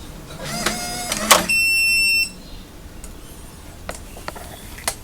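HyperTough digital deadbolt's small motor whirring for about a second as it drives the bolt, ending in a sharp click, then one long electronic beep from the lock. A couple of faint clicks follow.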